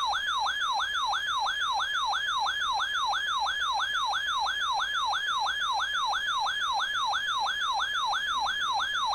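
Weather alert radio's electronic alarm siren: a loud tone sweeping downward in pitch, repeated steadily about three times a second, the alert signal that announces an incoming National Weather Service warning.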